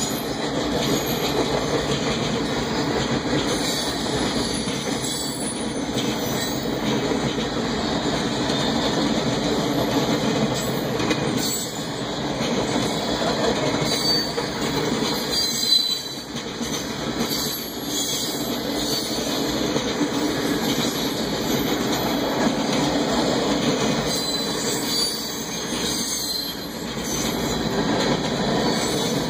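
Freight train cars rolling past: a steady rumble of steel wheels on rail, with clicking over the rail joints and occasional high wheel squeals.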